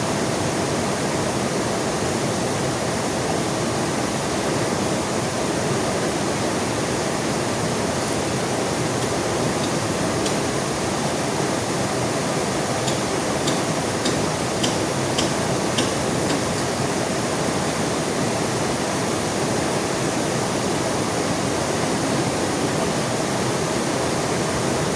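Heavy rain pouring beside a rushing river, a steady even wash of noise. A few sharp ticks stand out about halfway through.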